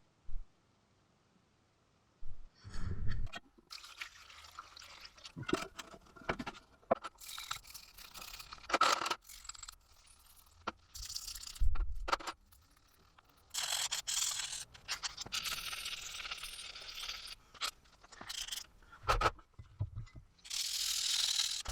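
Hand work on a hard surface: stretches of scraping or brushing, loudest in two longer strokes about two-thirds of the way in and near the end, broken by scattered clicks and knocks.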